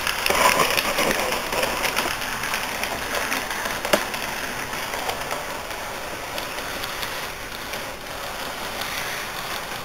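Model electric train running on the layout's track: a steady rolling hiss and rattle from its motor and wheels, with scattered small clicks and one sharper click about four seconds in.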